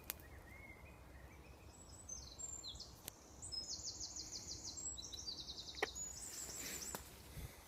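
A songbird singing a long, high-pitched song made of very fast trills that jump from pitch to pitch, after a few short, lower notes. A couple of sharp clicks come around the middle.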